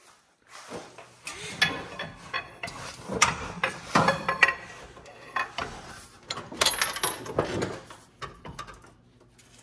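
Metal hand tools and parts clanking and clattering in an irregular run of sharp knocks, after a brief quiet start.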